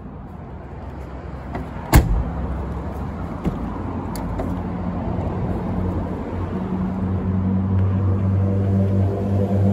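A car door on a 1991 Mercedes-Benz 300TE shuts with a single solid thump about two seconds in, followed by lighter clicks of the handle and latch as a door is opened. A low, steady vehicle drone then builds up and grows louder through the second half.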